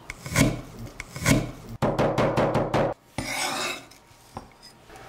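Cleaver mincing fresh ginger on a wooden cutting board: two separate chops, then about a second of rapid chopping at roughly nine strokes a second. Then the blade scrapes the minced ginger together across the board.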